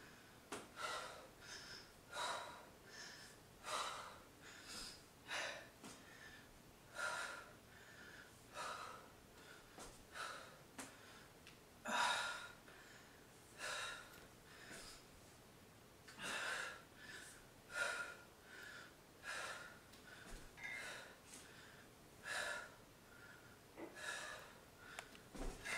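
A woman breathing hard under exertion: faint, short, forceful breaths about once a second, keeping time with repeated dumbbell rows.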